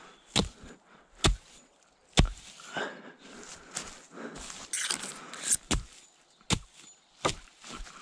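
Hatchet chopping into the ground, a run of dull strikes about once a second, with rustling and scraping of dry grass and soil between the strikes.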